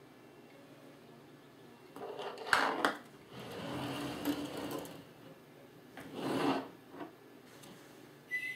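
Hands handling a small flashlight bulb and thin wires on a desk: rubbing and scraping in several short stretches starting about two seconds in, with a sharp knock about two and a half seconds in.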